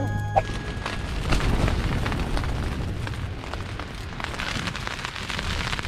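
Rain and wind-blown sand pattering irregularly on a tent's fabric, with a low rumble of wind gusting against the tent.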